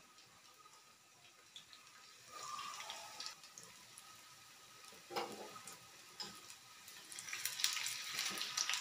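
Pakoda fritters deep-frying in hot oil in a kadai: a steady sizzle with scattered crackles, getting louder and busier near the end as a metal slotted spoon turns them, with the occasional clink of the spoon against the pan.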